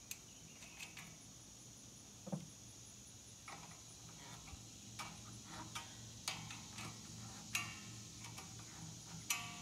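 Scattered light clicks and taps of hand work with tools and nuts on a small engine, about ten in all at uneven intervals.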